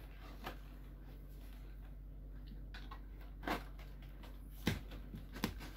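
A few faint, short clicks and taps of hands handling a cardboard toy box while opening it.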